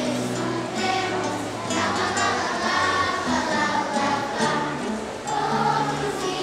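Children's choir singing a Christmas song in Portuguese, with instrumental accompaniment holding sustained low notes underneath.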